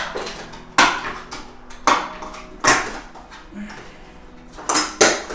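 Plastic clacks and rattles from the frame of a portable booster high chair as its height-adjustment legs are pushed and pulled between settings: about five sharp knocks, roughly a second apart, the last two close together near the end.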